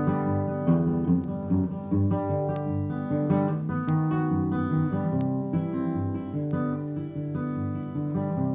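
Acoustic guitar played solo in an instrumental break between sung verses, notes picked and ringing together at a steady pace.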